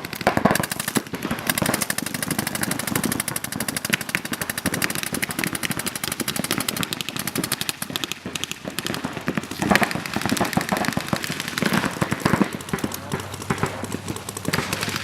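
Many paintball markers firing rapid strings of shots that overlap into a nearly continuous crackle, with a couple of louder volleys in the second half.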